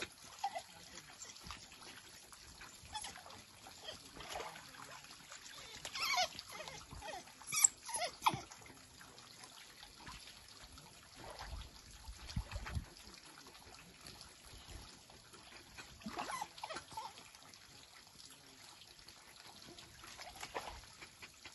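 African wild dogs splashing and sloshing about in a shallow pool of water, with irregular splashes and trickling; a few louder splashes come about six to eight seconds in and again near sixteen seconds.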